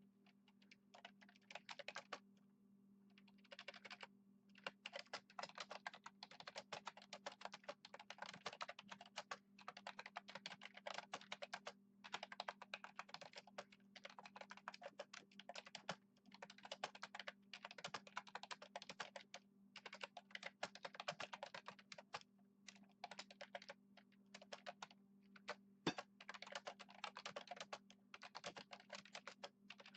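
Typing on a computer keyboard: fast runs of key clicks broken by short pauses, over a steady low hum.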